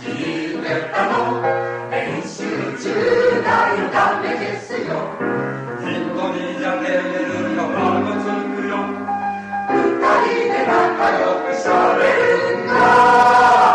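A mixed choir singing a Japanese children's tongue-twister song with piano, in quickly changing notes. It builds near the end to a loud, held final chord.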